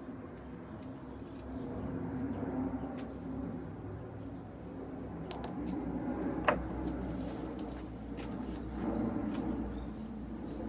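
Steady low background noise with scattered light clicks and taps from small objects being handled, and one sharp click about six and a half seconds in.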